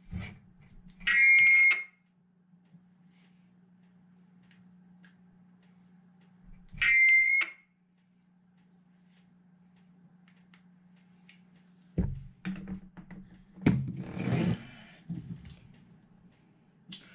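Two electronic beeps from a Kenwood TK-880 UHF mobile radio through its loose external speaker, each under a second long and about six seconds apart, over a faint steady hum. Near the end come clicks and rustles of hands handling the open radio.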